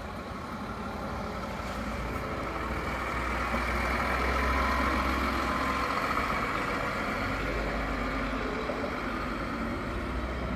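City buses driving through a turning loop, their engines running steadily; the sound swells to its loudest about four to five seconds in and then slowly fades.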